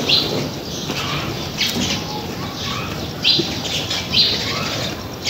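Birds chirping: several short calls, each falling in pitch, over a faint background hiss.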